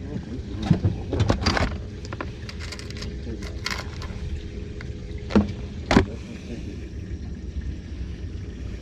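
Fishing tackle handled on a boat: a scatter of short clicks and knocks from a plastic tackle box and terminal tackle, the two loudest about five and six seconds in, over a steady low rumble.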